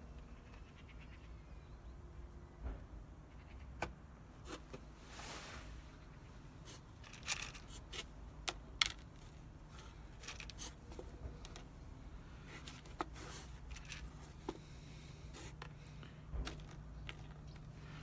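A hand moving about inside a plastic-bottle bird trap: the thin plastic crackles and scrapes, with scattered sharp clicks from the plastic and the seeds.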